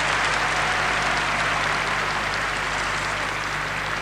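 Arena audience applauding steadily, easing off slightly toward the end.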